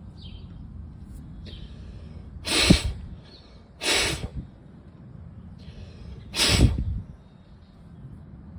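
Three short, hard puffs of breath blown through a small carburetor pilot jet, each a brief rush of air. The jet is clogged.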